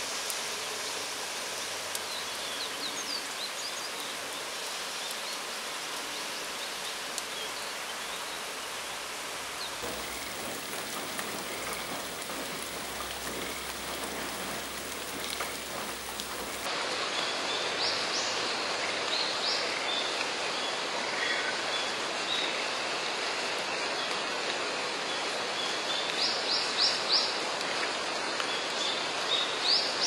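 Steady rain falling on still water, an even hiss that gets louder after a cut about two-thirds through. Short high bird chirps sound now and then over it, in quick clusters near the end.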